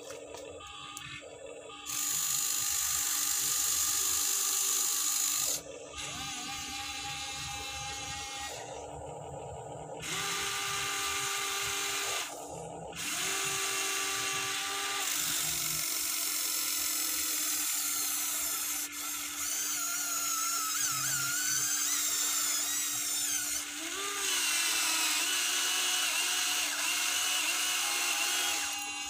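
Small electric gear motors of a Huina 1593 RC excavator whirring as the boom and arm move and the upper body slews. It comes in stop-start runs of a few seconds at first, then runs almost continuously through the second half with a whine that rises and falls in pitch.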